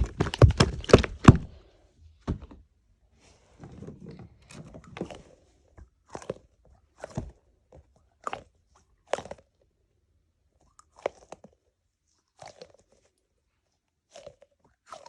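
Fidget toys being clicked and handled: a quick run of sharp clicks and taps over the first two seconds, then single clicks about once a second with a soft rustle between.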